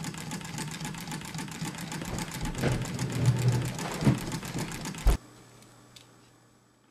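Homemade candle-heated, ice-cooled Stirling engine running, with a rapid, even ticking from its moving parts and a few heavier knocks. A loud thump comes about five seconds in, after which the sound drops to near silence.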